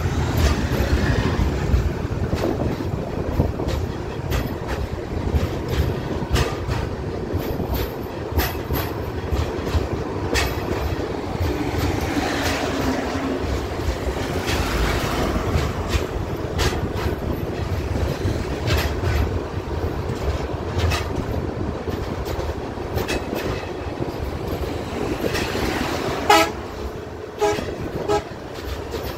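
Passenger train running over the Jamuna bridge, heard at an open coach window: a steady rumble of wheels on rail with repeated clicks over the rail joints.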